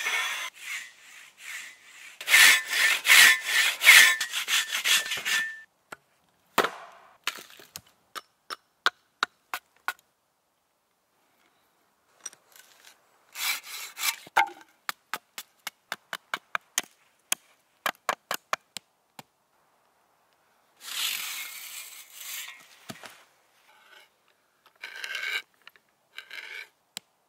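Silky Katanaboy 1000 folding saw cutting through a dead log in fast rasping push-pull strokes for the first five or so seconds. Then a series of separate sharp wooden clicks and knocks, another short stretch of rasping, and near the end a few rhythmic grinding bursts of a hand auger boring into a wooden stump.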